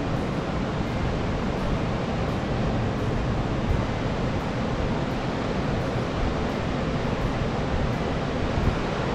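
Ocean surf breaking on a rocky cobble shore: a steady roaring wash of noise.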